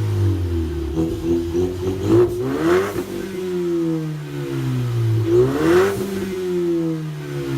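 2015 Ford Mustang EcoBoost's turbocharged 2.3-litre four-cylinder through a muffler-delete, glasspack exhaust, revving twice. Each time the pitch climbs quickly with a brief rushing noise at the top, then falls back slowly.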